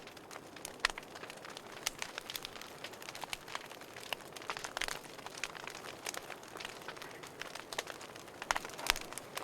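Wood fire burning in a fireplace, crackling: irregular sharp pops and snaps over a steady soft hiss, with a loud pop about a second in and a cluster of louder pops near the end.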